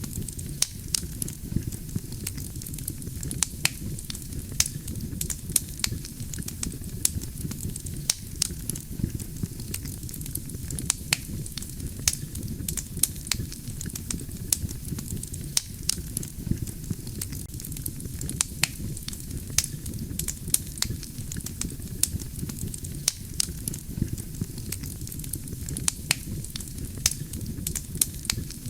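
Wood campfire burning, with a steady low rumble of flames and frequent sharp, irregular crackles and pops from the burning logs, several a second.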